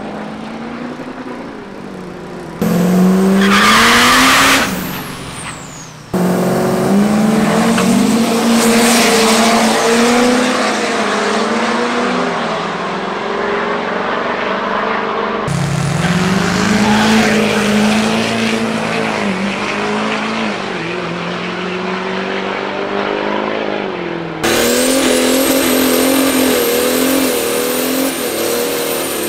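Diesel drag truck engines running and revving, pitch rising and falling, with the sound jumping abruptly several times. A loud hissing burst comes about three seconds in, and a thin high whistle rides over the engine near the end.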